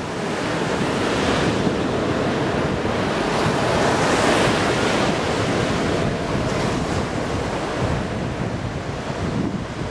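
Surf breaking and washing up the beach, with wind buffeting the microphone. The wash swells about four seconds in.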